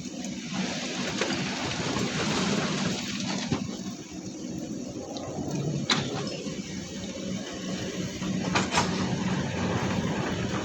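Heavy diesel machinery at a sand quarry running steadily, with a sharp clank about six seconds in and another pair of knocks near nine seconds.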